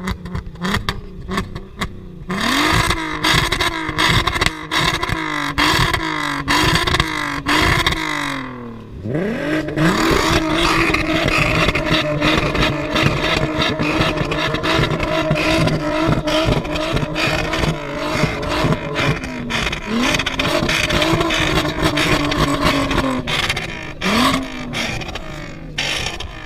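Car exhaust with the engine being revved hard. First comes a run of quick blips that rise and fall for several seconds. After a brief drop the revs are pulled up and held high for over ten seconds, then fall back, with one last short blip near the end. Rapid crackles run through the sound.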